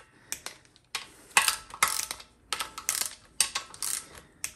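Ratcheting torque wrench clicking in short runs as it tightens the valve body bolts on a GM TH350 transmission, with brief pauses between strokes.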